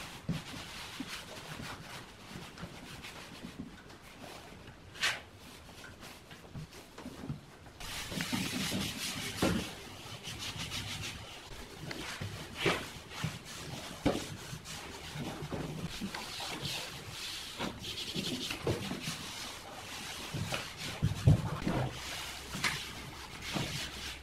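Hands rubbing and smoothing a vinyl leatherette sheet onto a wooden speaker cabinet, with scattered taps and pats of palms on the panels.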